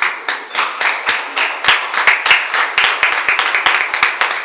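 Audience applause: many hands clapping, with loud, sharp claps close to the microphone.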